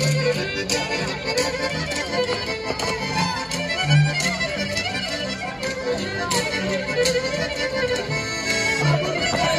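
Romanian folk dance music: a lively melody over repeating bass notes with a steady beat.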